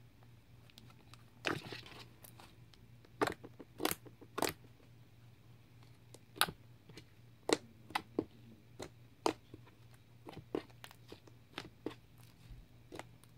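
White butter slime being kneaded and poked by hand, giving an irregular series of sharp sticky clicks and pops as it is pressed and pulled.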